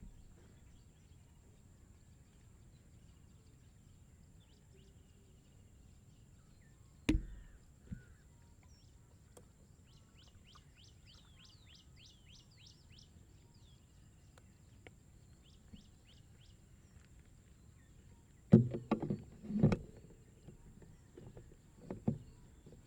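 Bicycle ride on a village road: a low steady rumble with sharp knocks, one about seven seconds in and a louder cluster of several near the end. A small bird gives a fast trill of high chirps in the middle.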